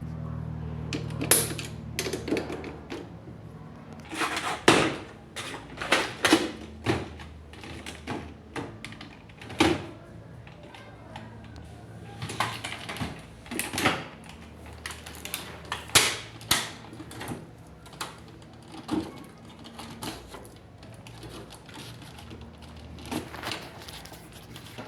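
Irregular sharp clicks and knocks of hands working on a washing machine's control panel and wire connectors, some ringing briefly, over a faint low hum.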